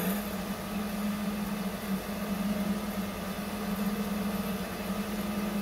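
Stone-cutting saw with a diamond blade running and spinning free, not yet cutting: a steady motor hum.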